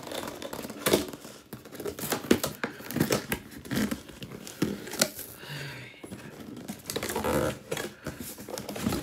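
Cardboard box being opened by hand: flaps and inner packaging scraping, rustling and crinkling, with irregular knocks and small tears.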